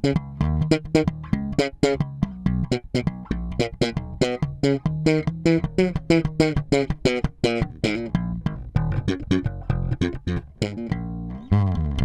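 Fender Deluxe Active Precision Bass Special electric bass played fingerstyle through its blended P-bass and Jazz-bass pickups, with its active EQ set flat. A quick run of plucked notes, several a second, with a sliding note near the end.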